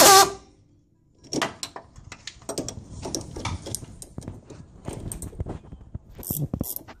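A loud rattling burst cuts off right at the start. After a second's pause comes a run of quick, irregular metallic clicks from a hand ratchet spinning the nut off a sway-bar end link bolt.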